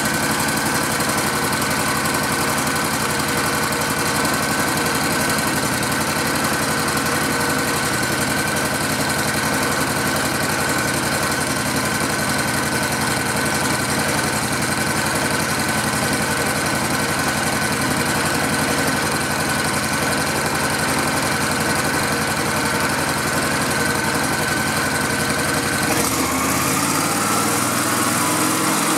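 Riding lawn mower's air-cooled small engine running steadily while its charging output is tested. A few seconds before the end its pitch breaks and shifts as the engine speed changes.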